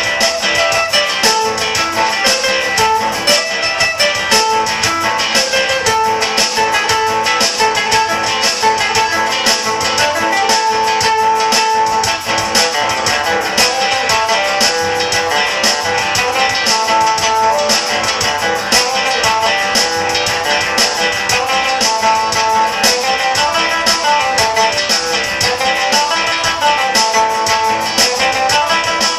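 Music of fast, steady strumming on plucked string instruments, with a melody running over it.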